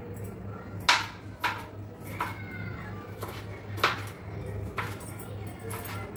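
Kitchen knife chopping vegetables by hand on a cutting board: about seven sharp, irregularly spaced knocks of the blade on the board, over a steady low hum.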